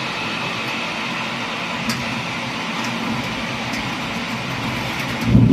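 Heavy tropical rain pouring steadily, a dense even hiss with the odd faint drop tick. Near the end a loud, low thunder rumble rolls in.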